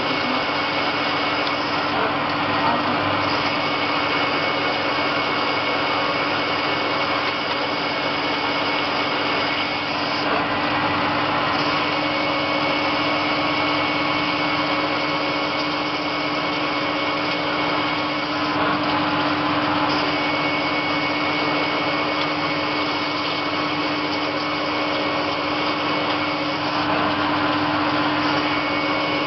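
CNC lathe running and turning a spinning workpiece under flood coolant: a steady machine hum with a few held tones over the hiss of the cutting and the coolant spray.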